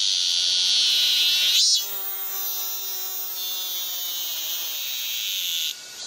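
Cicadas calling in a loud, steady, high buzz that cuts off about a second and a half in. A weaker buzz starts again past the middle and stops just before the end. In between, a separate lower tone slides slowly down in pitch.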